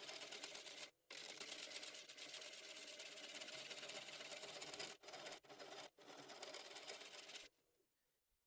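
Red oak bowl blank spinning on a wood lathe while a turning tool cuts it: a steady, rapid rasping chatter broken by a few short gaps, stopping about seven and a half seconds in.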